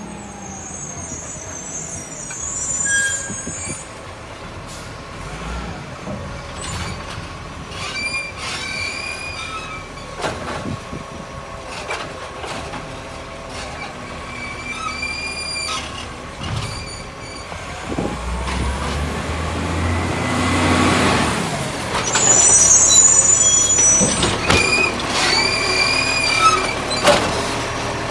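Side-loader garbage truck with a diesel engine, approaching and stopping with several sharp air-brake hisses. The engine rises in level about two-thirds of the way through as the hydraulic arm works to lift a green-waste wheelie bin.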